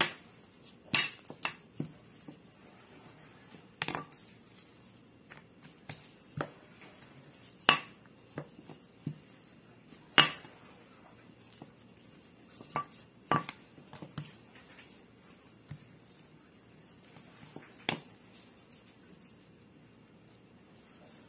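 A wooden rolling pin rolling out bread dough on a silicone mat, with about a dozen sharp, irregular knocks as the pin bumps the mat and table. The knocks stop a few seconds before the end as hand shaping of the dough begins.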